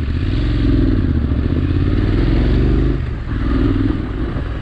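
Motorcycle engine pulling away under throttle. The revs climb, dip at a gear change about three seconds in, then climb again.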